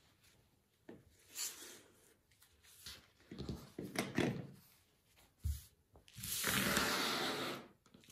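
Handling sounds on a cutting mat: short knocks and rustles as an acrylic ruler and cut fabric are moved about. Near the end comes a longer scraping rub, lasting about a second and a half, as the metal washer weights are cleared off the paper pattern.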